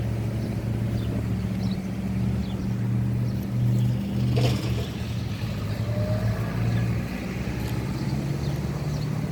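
A motor vehicle's engine running, a steady low drone with a held pitch, with one sharp click about four and a half seconds in.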